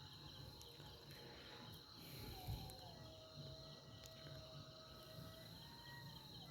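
Near silence with faint crickets or similar insects trilling steadily in the background.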